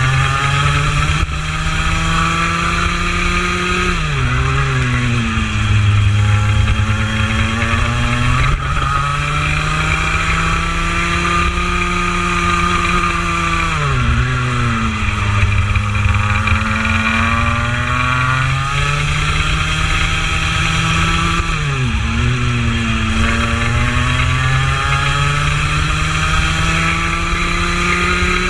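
Two-stroke racing kart engine heard onboard at full throttle, its pitch climbing steadily along the straights. It drops sharply four times as the driver lifts off for corners, then rises again under acceleration out of each.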